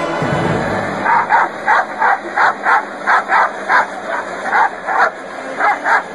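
Dog barking in quick, evenly repeated barks, about three a second, starting about a second in.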